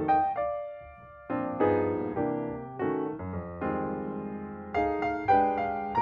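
Background music on piano: chords and single notes struck and left to ring, with a brief thinning to one held note about a second in before the chords resume.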